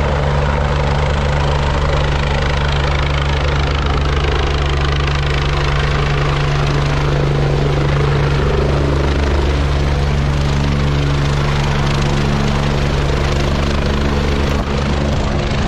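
A helicopter coming in to land close by, its rotor beating steadily and engine running loud over a rushing noise as the downwash blows across the dirt.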